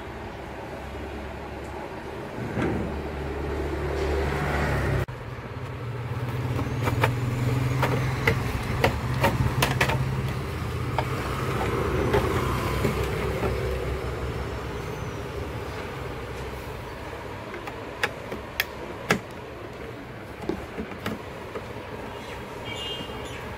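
Plastic case of a desktop UPS being handled and its top cover lifted off: scattered sharp clicks and knocks of plastic. Underneath is steady background noise, with a low rumble in the first few seconds that cuts off suddenly.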